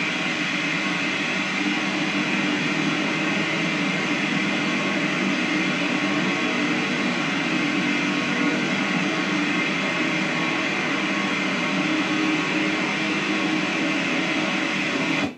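Steady, dense static hiss from an ITC spirit-communication device, running unchanged and then cutting off abruptly near the end.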